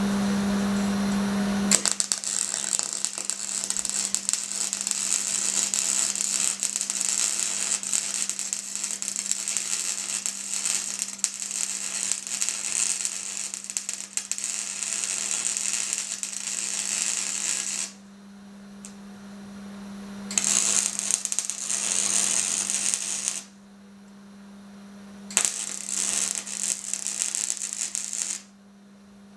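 MIG welder laying beads on steel angle iron: a steady welding-arc crackle for about sixteen seconds, then two shorter runs of about three seconds each. The steel is uncleaned, so the arc throws a lot of spatter. A steady low hum sits underneath throughout.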